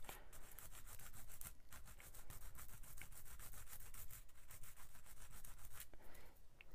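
Sanding stick rubbed back and forth in quick strokes over a small photo-etched metal part held in pliers, sanding it flat. The strokes stop about six seconds in.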